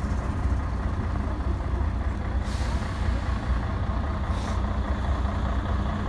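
A heavy vehicle running with a steady low rumble. Two short hisses of released compressed air come about two and a half and four and a half seconds in, typical of an air brake.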